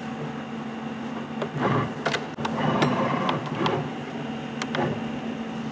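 CNC router's axis motors jogging the machine: a steady electrical hum with a few short rising and falling whines in the middle as the axis moves.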